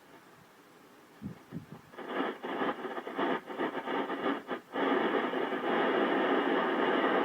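FM radio receiver static on the International Space Station's amateur radio downlink between transmissions. After a quiet stretch the hiss cuts in and out in choppy bursts for a few seconds, then holds as a steady hiss from about five seconds in.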